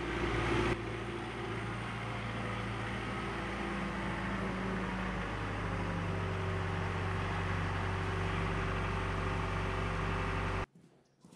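John Deere 4066R compact tractor's diesel engine running steadily as the tractor drives up, its note dropping slightly about halfway through. The sound cuts off suddenly near the end.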